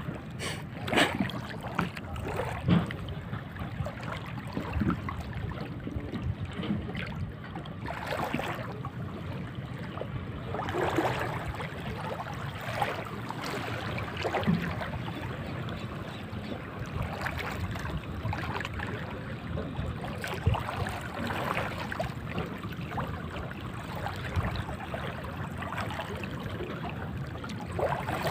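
Seawater lapping, with irregular small knocks and rustles.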